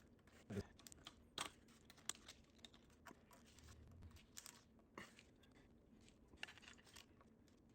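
A few faint, scattered clicks and scrapes of hand work on a small engine part, with near silence between them and no power tool running.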